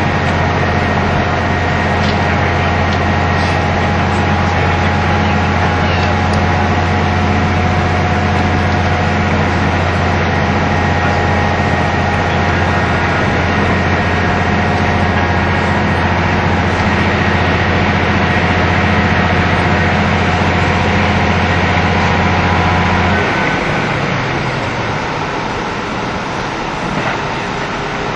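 Onboard running sound of a KiHa 75 diesel railcar under power: a steady low diesel engine drone with a steady whine above it. Near the end the engine drone and whine drop away and the car runs on more quietly with only wheel and running noise, as when the throttle is shut and it coasts.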